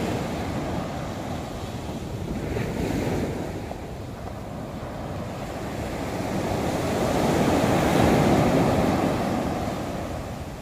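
Sea surf breaking and washing up a sandy beach in a rough sea with big waves, swelling to its loudest about eight seconds in, with wind rumbling on the microphone.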